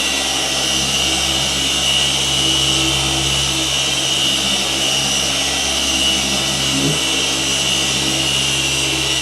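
Rupes Mark III 21 mm long-throw random-orbital polisher running steadily under load, a constant hum with a high whine, as it cuts coarse compound on a wet-sanded car panel.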